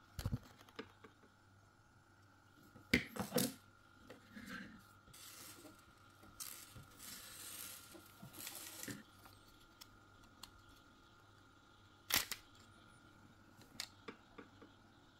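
Hands handling the parts of a disassembled cordless hair clipper: its plastic housing, motor and battery pack. A few sharp clicks and knocks come near the start, around three seconds in and around twelve seconds in, with a stretch of rubbing and rustling in the middle. A faint steady high tone runs underneath.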